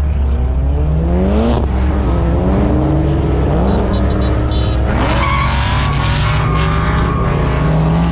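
Ford F-truck's engine revving hard on a race track. Its pitch climbs, drops back at a gear change about a second and a half in, then climbs again and holds, with tyres squealing in a slide from about five seconds, over a steady low wind rumble.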